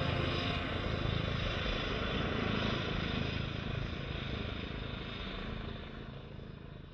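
Steady aircraft engine noise at an airfield, slowly getting quieter and fading out near the end.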